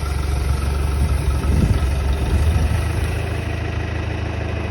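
Farm tractor engine running steadily at low revs. It grows a little louder and rougher for a moment about one and a half seconds in.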